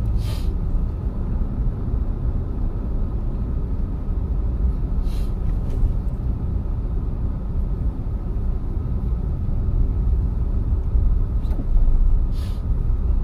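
Road noise heard from inside a moving car: a steady low rumble of tyres and engine, with three brief hisses, near the start, about five seconds in, and near the end.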